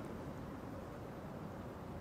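Faint, steady outdoor background noise with no distinct event: no pitch, bat contact or voices.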